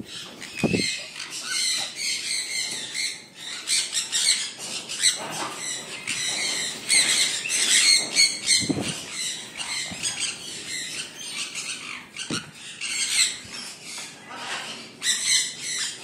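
A flock of sun conures chattering and squawking together as they feed: many short, shrill, overlapping calls, with a few low thuds now and then.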